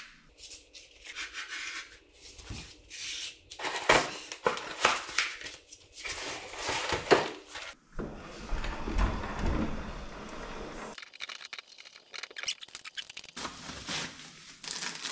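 Hands-on handling noise: heavy paper floor-protection board being cut, torn and scraped up from a floor, with irregular rasping and several sharp clicks and knocks, the loudest about four and seven seconds in. Near the end comes the rustle of plastic packing being pulled out of a refrigerator.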